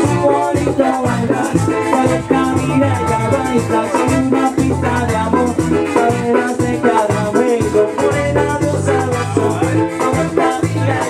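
Latin pop music with shaker percussion and a stepping bass line, at a steady beat.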